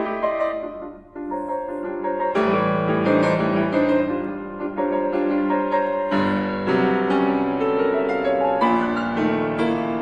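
Grand piano playing contemporary concert music: chords that die away almost to quiet about a second in, then new chords struck every few seconds, each left to ring.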